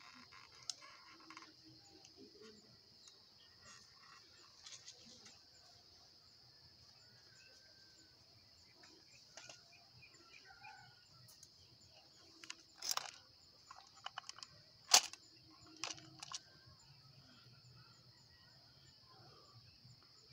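Steady high-pitched drone of insects in the brush, with a handful of sharp clicks a little past the middle, one of them much louder than the rest.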